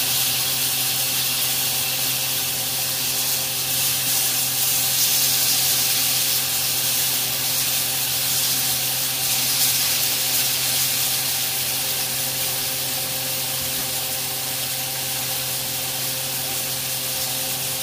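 New York strip steaks sizzling in a hot ridged grill pan: a steady hiss of searing meat and fat, with a steady low hum underneath.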